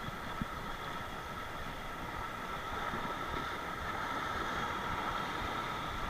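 Steady rushing noise of wind and sea surf on the microphone, with one short knock about half a second in.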